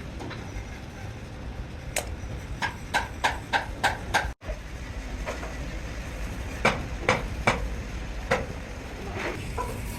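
A run of sharp knocks, about six in quick succession, then about five more spaced further apart, some with a short ringing tail, over a steady low rumble.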